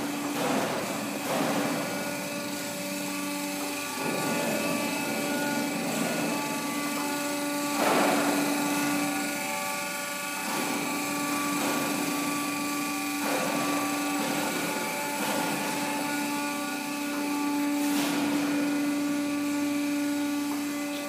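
Delta TP 750/500 surface grinder running: a steady whine made of several tones over a background rush of machine noise, with a couple of short louder noises about 8 and 18 seconds in.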